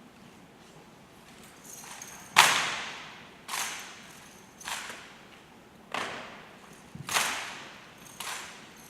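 Sharp cracks of a rifle drill team's rifles being slapped and struck in unison, six in all about every second, each with an echoing tail.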